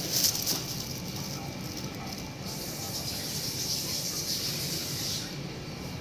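Steady hiss of running or spraying water, starting a couple of seconds in, lasting about three seconds and stopping abruptly near the end.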